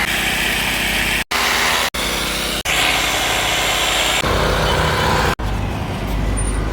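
An engine running, in several short clips cut together with abrupt breaks.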